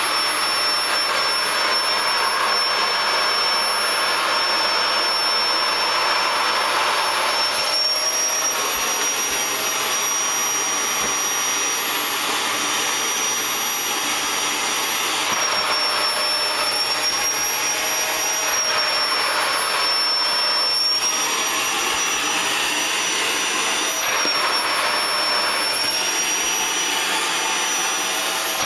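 Vacuum cleaner running: a steady rush of air with a high motor whine that steps up and down in pitch several times.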